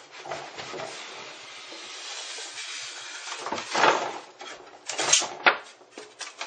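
A 21.5-inch iMac being pulled out of its cardboard box: a long scraping, sliding rub of the packaging, then a few louder knocks and rustles over the last few seconds.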